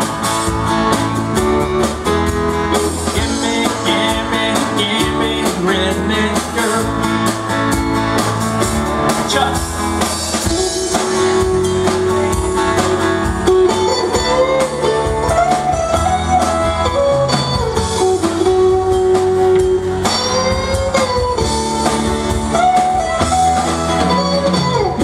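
Live country-rock band playing on an amplified stage: drums, bass, electric and acoustic guitars and keyboard. A lead line of long held notes that bend in pitch runs over the steady beat.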